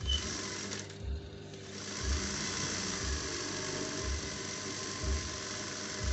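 Juki industrial sewing machine stitching, running steadily from about two seconds in, over background music with a low beat about once a second.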